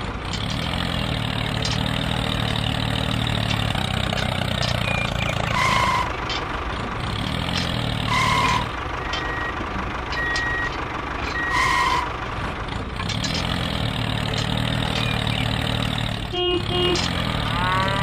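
Tractor engine running steadily, with three short high beeps about six, eight and twelve seconds in.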